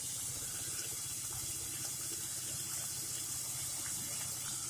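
Soaked urad dal frying in oil in an iron kadhai: a steady, even sizzle as the dal's water cooks off, with a faint low hum underneath.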